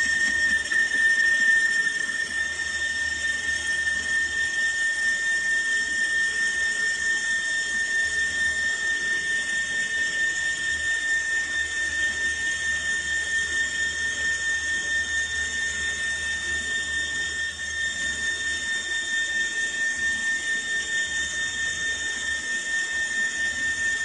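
Metal lathe running through a machining cut, with a steady high-pitched whine over the noise of the machine.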